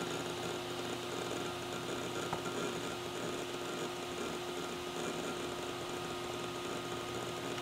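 Western Digital Raptor X WD1500AHFD 10,000 RPM hard drive running: a steady whine from the spinning platters over an airy rush. A single faint tick comes about two seconds in.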